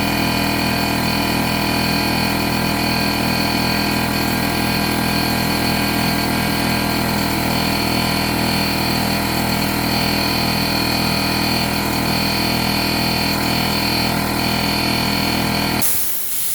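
Air compressor running steadily, its motor and pump pulsing evenly. Near the end the motor cuts off suddenly as the pressure switch shuts it down, and a hiss of released air follows.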